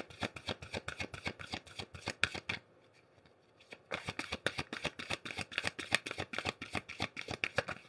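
A tarot deck shuffled by hand, packets of cards slapping together in rapid papery flicks, stopping for about a second near the middle and then starting again.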